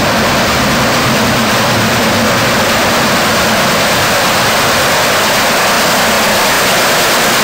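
Steam excursion train passing close: a loud, steady rushing noise with no distinct beat.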